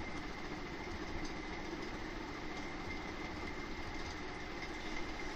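Steady background hum and hiss with a faint, steady high-pitched tone: room noise with no distinct event.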